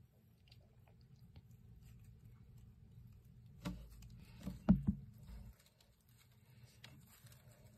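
Mice moving about, with faint scratching and pattering and a short run of four bumps about halfway through, one much louder than the rest.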